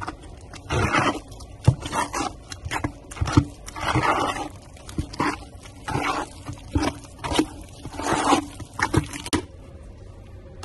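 Unsanded grout being mixed by hand in a bucket: a mixing tool scraping and slapping through the powder and paste in irregular strokes, one or two a second, stopping abruptly about a second before the end.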